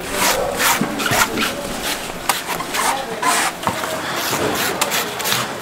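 A knife shaving and scraping a coconut: an irregular run of short rasping strokes, a few a second.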